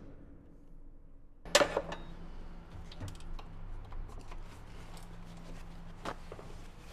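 Metallic clinks and one sharp clank, about a second and a half in, of tools and parts handled in a car's engine bay, over a faint low steady hum.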